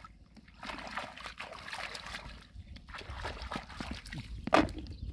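Shallow water sloshing and trickling in two stretches of a couple of seconds each, with one sharp, louder sound near the end.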